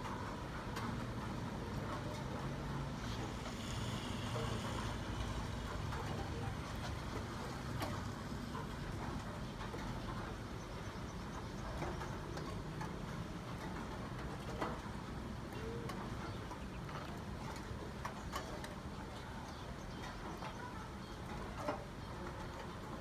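Rain ambience with a steady low rumble and scattered light ticks and drips.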